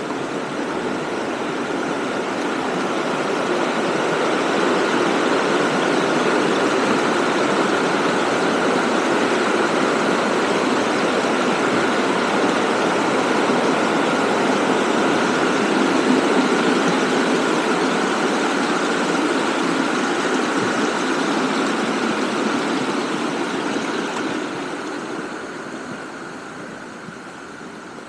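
Rushing water from a small stream cascading over a weir: a steady rush that grows louder over the first few seconds and fades away over the last few.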